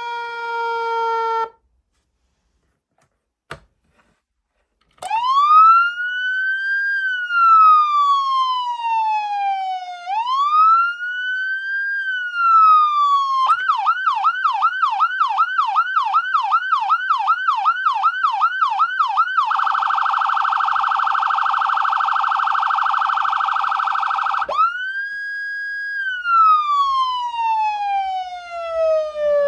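Electronic siren tones from a Whelen 295SLSA6 200-watt siren amplifier. A falling tone cuts off, a single click sounds in the short silence, then comes a slow wail rising and falling, a fast yelp at about four sweeps a second, an even faster warble, and the slow wail again.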